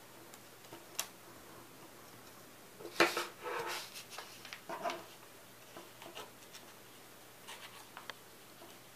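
A paper scrapbook page being handled on a cutting mat: a sharp tap about a second in, then paper rustling and sliding across the mat around three seconds in, followed by a few light clicks and scrapes.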